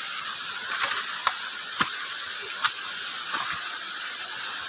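Steady rushing hiss of a nearby waterfall, with a few sharp clicks in the first half.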